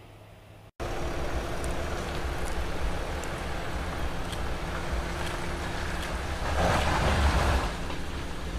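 Mercedes-Benz G-Class engine running with a low rumble as the SUV crawls across a steep forest slope, starting abruptly just under a second in and swelling louder for about a second near the end.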